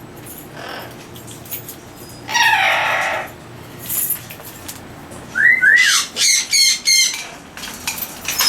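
Captive parrots calling in an aviary. A long squawk comes about two seconds in and a short call at four seconds. From about five seconds a pair of rising-and-falling whistles leads into a run of loud squawks.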